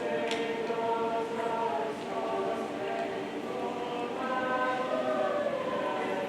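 A high school chamber choir singing in several parts, holding long sustained chords.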